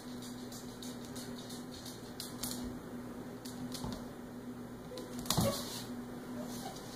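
A puppy's claws clicking lightly on a hardwood floor as it trots in, with a louder thump and scuff about five seconds in as it sits down, over a steady low hum.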